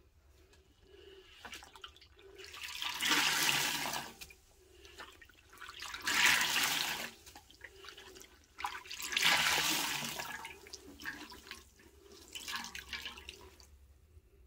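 A porous sponge squeezed and wrung in a metal bowl of rinse water, water gushing and splashing out of it in three long squeezes, then a few smaller ones near the end.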